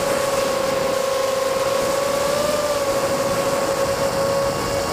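FPV quadcopter's electric motors and propellers whining steadily in flight, the pitch lifting slightly about halfway through.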